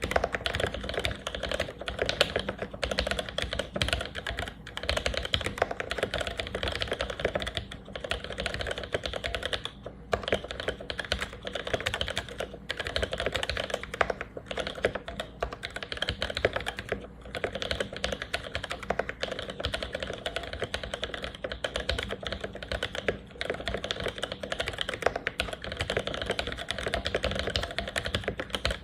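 Mechanical keyboard typed on continuously at a steady pace, with a few short pauses. It is an Exent board with new-old-stock vintage Cherry MX Black linear switches, lubed with Krytox 1514 and fitted with switch films and 63.5 g springs, under GMK keycaps.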